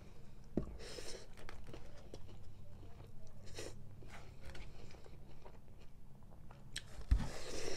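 Close-miked eating: chewing and biting with wet mouth sounds, and a plastic fork clicking and scraping against a styrofoam takeout container as food is scooped up. A louder thump near the end.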